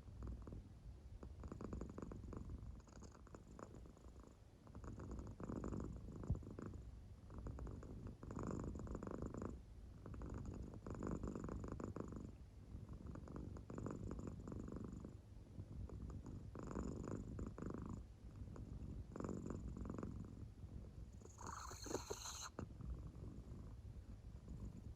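An American Shorthair cat purring softly in deep sleep, the purr swelling with each breath about every two and a half to three seconds. A brief, sharper noise comes near the end.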